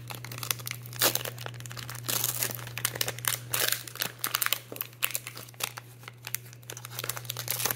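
Foil Pokémon trading-card booster pack wrapper being torn open and crinkled by hand: many quick, irregular crackles and rips, over a steady low hum.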